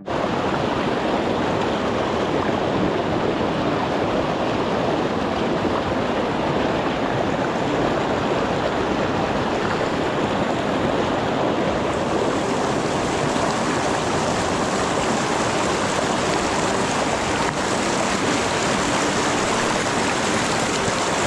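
Mountain river rushing over rocks in close rapids, a steady full rush of water that turns a little hissier about halfway through.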